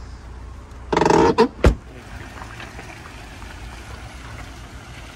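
A brief loud squeak, then a car door shutting with a thump, followed by the Rover Streetwise running and moving slowly on gravel as a steady low rumble.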